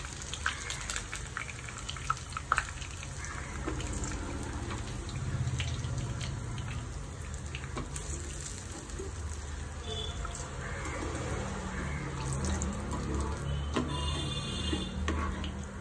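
Chicken pieces deep-frying in hot oil in a pot: a steady sizzle with scattered crackles and pops.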